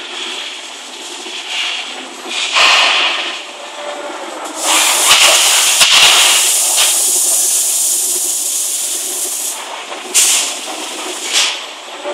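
Compressed-air hissing from a teat-dip robot on a rotary milking parlour: a short burst, then one long hiss of about five seconds, then two more short bursts near the end, over a steady machinery hum.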